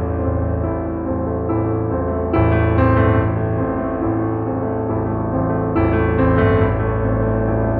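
Background music on keyboard or piano: sustained chords over a steady bass, with new chords coming in about two and a half seconds in and again near six seconds.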